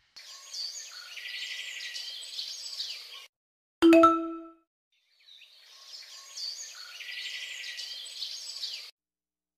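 Birds chirping, cut off abruptly after about three seconds. Then comes a single bell-like ding that rings briefly and is the loudest sound, then more chirping that stops suddenly near the end.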